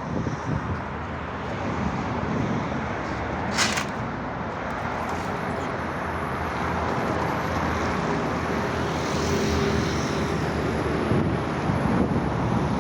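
Chevrolet Chevy with a newly fitted resonator and muffler, its engine and exhaust running steadily while driving, with road noise. A brief high hiss comes about three and a half seconds in.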